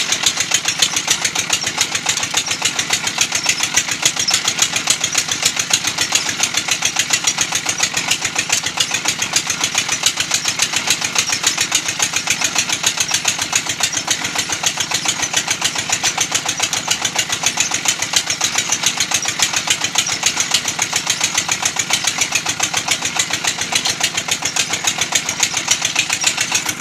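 A brick-making machine running steadily, its motor and mechanism making a fast, even clatter without a break.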